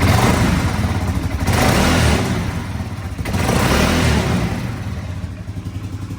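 Polaris Sportsman 570 ATV's single-cylinder engine revving in three surges, then easing back toward idle, with a loud clutch noise and the floor panels rattling. The owner takes it for a fault in the CVT clutch.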